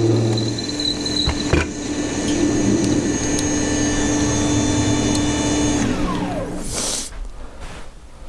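Electric power-tool motor running steadily, with a couple of knocks early on; about six seconds in it is switched off and its whine falls away as it spins down, followed by a brief clatter.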